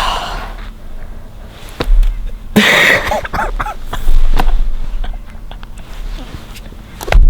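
A .350 Legend deer rifle fired at a deer, close to the microphone, among loud sudden thumps and handling noise.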